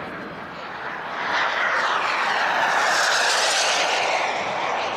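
Skymaster A-4 Skyhawk model jet's small turbine engine making a rushing jet noise as it flies past. The noise swells about a second in, is loudest around the middle and eases slightly near the end.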